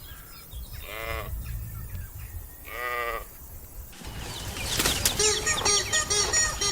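Two short, quavering bleats about two seconds apart. From about four seconds in, a dense chorus of many short, high-pitched calls overlaps continuously.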